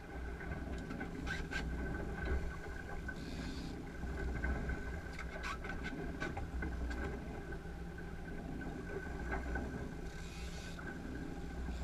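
Boat's twin outboard motors running steadily with a low rumble and a steady high whine. A few sharp clicks and knocks sound on deck, and there are two brief bursts of hiss, about three seconds in and near the end.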